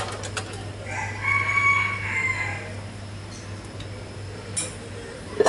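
A rooster crowing once: one drawn-out call of about a second and a half that rises, holds and falls away, over a steady low hum.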